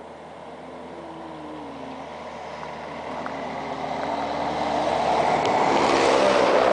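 A big truck approaching on the road and passing close by, its engine and tyre noise building steadily louder to a peak near the end.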